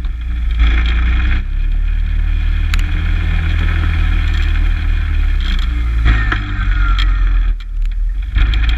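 ATV engine running steadily as the quad drives through snow. The rumble eases off briefly near the end, then picks up again.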